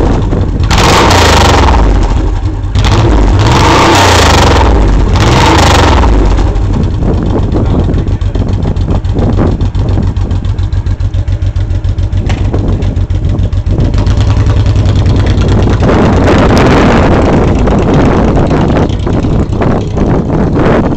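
Honda VTX1800C's 1800 cc V-twin running through an aftermarket VTXexhaust.com exhaust with the PAIR system blocked off: revved in three short blips in the first six seconds, then settling into a steady, lumpy idle.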